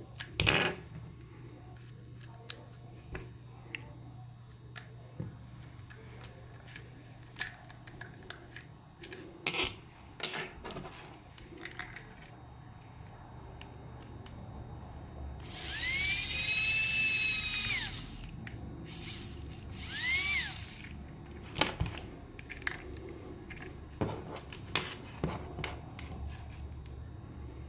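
Scattered handling clicks and taps, then a small electric motor whirs for about two seconds, its pitch rising quickly, holding, then falling away as it spins down. It gives a second, shorter whir a couple of seconds later.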